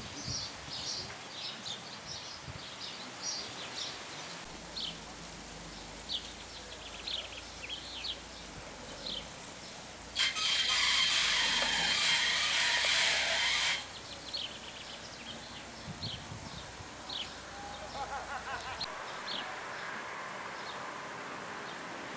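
Small birds chirping in short high calls again and again. Near the middle comes a loud, harsh, hissing sound with a steady high whistle in it, lasting about three and a half seconds before it stops abruptly.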